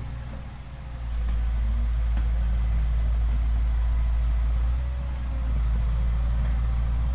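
Small electric motors of a toy RC excavator running with a faint wavering whine, over a louder steady low rumble that rises about a second in.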